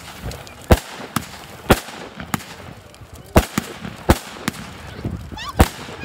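Aerial firework shells bursting overhead: about nine sharp bangs at irregular intervals, some close together, over a steady crackling background. Near the end comes a brief burst of high, squealing pitched glides.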